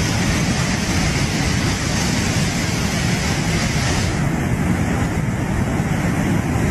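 Muddy flash-flood torrent rushing past, a loud steady noise of churning water. The upper hiss thins abruptly about four seconds in.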